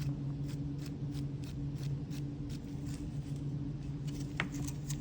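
Soldering iron tip being cleaned of old solder: light scratching and clicking, with one sharper click about four and a half seconds in, over a steady low hum.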